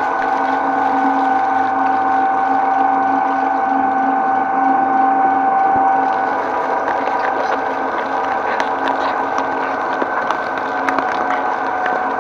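Twin-shaft shredder running under load, its motor and gearbox giving a steady whine while the cutter discs chew through snake plant leaves. About six seconds in the whine shifts, and scattered sharp cracks follow as the blades bite into a coconut.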